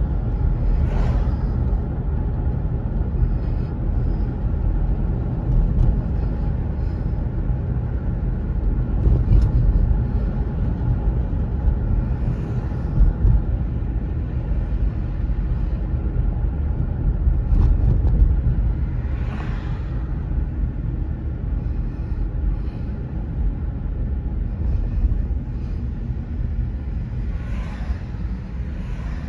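Road noise inside a moving car's cabin: a steady low rumble of engine and tyres. A few brief swells stand out, at the start, about a third and two thirds of the way in, and near the end.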